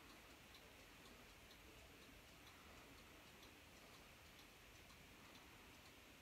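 Faint, steady ticking of a weight-driven chalet-style cuckoo clock's movement, about two ticks a second.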